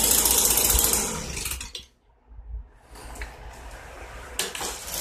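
Stihl BG 65 leaf blower's small two-stroke engine running, then shut off about a second in and spinning down to a stop. A few light clicks and knocks of the blower being handled follow.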